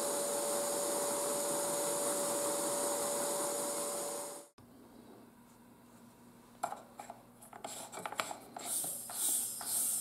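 Vacuum cleaner running, a steady rushing hiss with a thin high whine, sucking air through a hose to drive a wooden model steam engine; it cuts off abruptly about four and a half seconds in. After that, faint scattered rubbing and clicking sounds.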